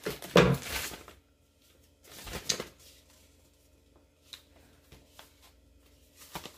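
Plastic mailer bag rustling and crinkling as it is handled, in two loud bursts in the first three seconds, followed by a few light clicks and taps.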